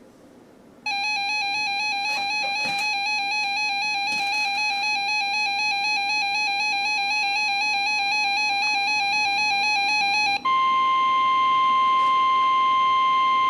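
Weather radio alert tones. A loud warbling electronic alarm tone starts about a second in and runs about nine seconds, then switches abruptly to a steady single-pitch tone of about 1050 Hz: the NOAA Weather Radio warning alarm tone, which signals that a warning broadcast is about to follow.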